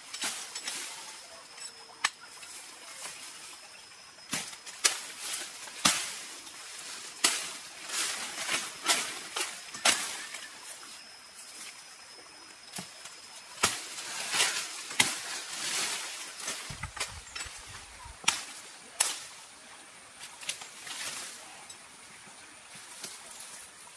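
Knife hacking and snapping through vines and woody stems in thick brush: a string of sharp, irregular cracks and cuts, with leaves rustling between them.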